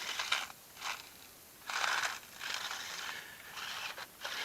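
Toy remote-control stunt car's electric motors and gears whirring in short bursts as it is driven on grass, about five spurts of varying length.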